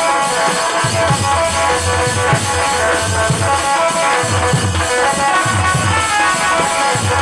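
Instrumental break of a song: a melody of held notes over a steady drum beat, with no singing.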